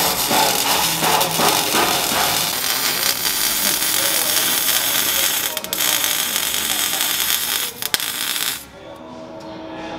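MIG welding on a truck's exhaust pipe: a steady hissing arc that cuts off suddenly near the end.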